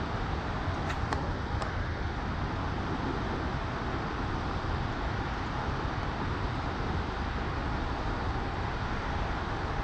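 Steady rumble and hiss of water pouring through a dam's open spillway gates, with a few faint clicks about a second in.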